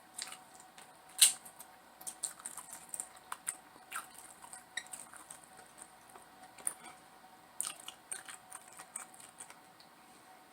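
Close-up eating sounds: a person chewing, with scattered crisp clicks and crackles and one sharper click about a second in.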